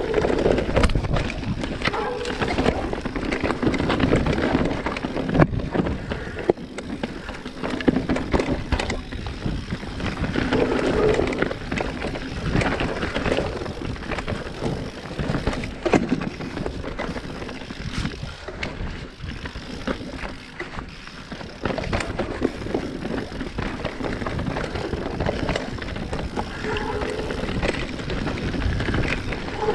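Mountain bike descending a dirt and rock woodland singletrack: tyres running over the trail surface, with frequent knocks and rattles from the bike as it goes over bumps.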